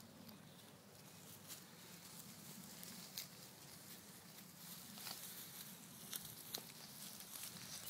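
Faint rustling and light crackling of footsteps moving through dry grass and brush, over a low steady background hum; the crackles become more frequent toward the end.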